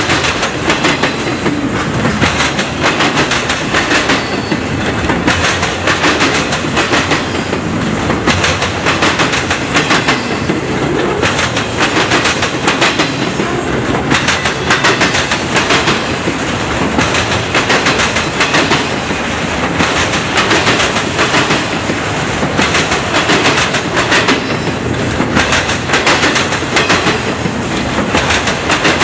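Freight train of autorack cars rolling past close by: a steady rolling rumble with the wheels clacking in repeated groups of clicks as each truck passes over the track.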